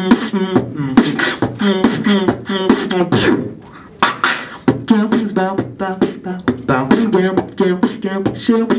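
Beatboxing into a handheld microphone: a fast run of mouth-made kick, snare and hi-hat sounds with a hummed low tune under them. It breaks off briefly about three seconds in and picks up again about a second later.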